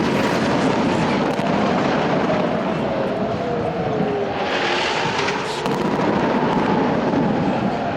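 Air-raid sirens wailing, several overlapping, each tone slowly rising and falling, over a constant noisy rumble: the warning of an incoming missile attack.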